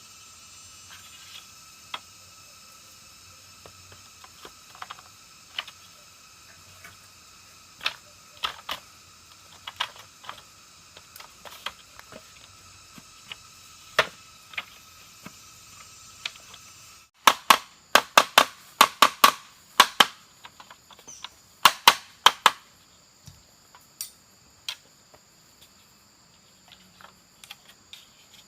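Sharp knocks and clicks of bamboo being struck and worked by hand, scattered at first, then a quick run of loud strikes a little past the middle. Until that run a steady high insect drone sits behind the knocks, then it drops away abruptly.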